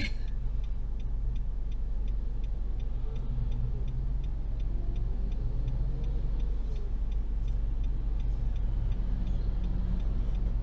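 A car's turn-signal indicator clicks steadily, about two clicks a second, over the low hum of the car's engine idling, heard from inside the cabin. Passing traffic is faint in the background.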